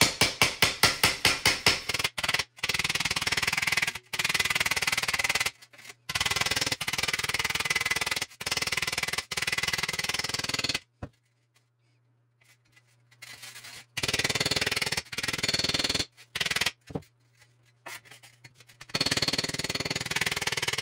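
Small hammer tapping rapidly on a light-gauge steel dash capping flange against a small anvil, straightening out dents. The taps come fast, about eight a second at first, then in dense runs with short breaks and a pause of a few seconds past the middle.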